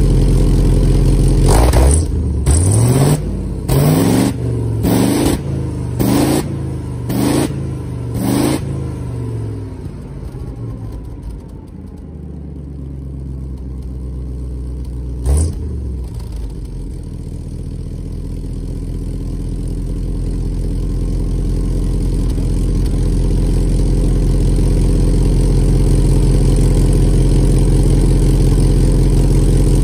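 Rolls-Royce B81 6.5-litre straight-eight petrol engine of an FV432 Mk1, heard at the exhaust outlet, running on all eight cylinders after a tune-up and tappet reset. It is blipped about seven times in a row, roughly once a second, then the revs fall away to a low idle. A single sharp pop comes about fifteen seconds in, after which the engine note slowly builds and settles into a steady run.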